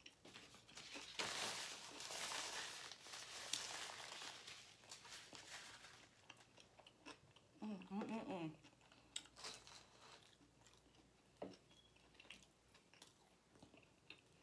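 Close-miked chewing of a toasted cheesesteak sub, with crunchy, crackling bites and wet mouth sounds that are loudest in the first half. A short hummed "mm" comes about eight seconds in, followed by scattered small clicks of chewing.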